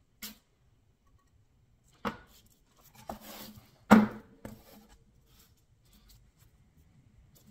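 A metal scraper knocking and scraping on a painted board and paper-covered table as it sweeps loose sawdust off: a click at the start, a knock about two seconds in, a short scrape, then the loudest knock about four seconds in.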